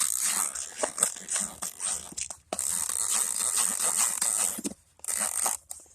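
Airsoft high-capacity magazine's winding wheel being turned, a rapid ratcheting rasp of small clicks that winds the feed spring, pausing briefly a few times between turns.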